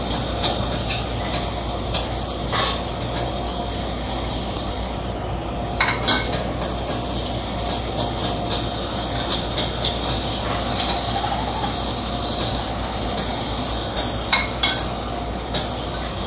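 Pillar drill running while a scooter's brake-drum hub is ground and polished on its table, a steady mechanical grinding din over a constant motor hum. Sharp metal clanks come a little before the middle and again near the end, as the hub is shifted and lifted.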